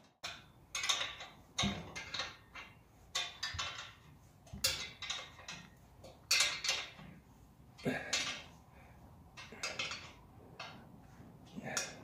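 Irregular metal clinks and scrapes as a clamp and a steel pipe are worked loose from a corrugated flexible metal pipe, about a dozen short knocks and rasps in uneven succession.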